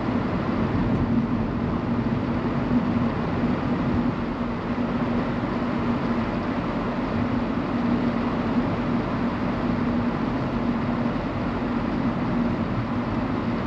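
Steady road and tyre noise inside a moving car's cabin: an even rush with a steady low hum running through it.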